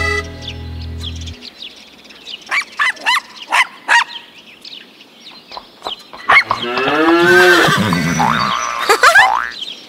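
The song's last accordion chord dies away about a second in. Then come cartoon farm-animal calls: a few short chirps, a long cow moo, and more animal calls near the end.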